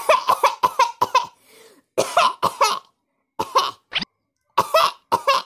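A person's coughing fit, voiced for a comic dub: a long run of short, sharp coughs in quick clusters, with one brief breath in after about a second and a half.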